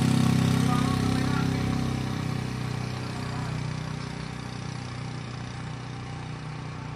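Small motorcycle's engine running steadily as it rides off, growing fainter as it moves away.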